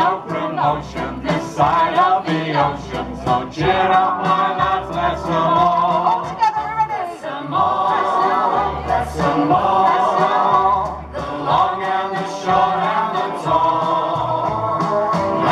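Male and female vocalists singing an old-time wartime singalong song together through microphones and PA speakers, over an instrumental backing track with a steady bass line.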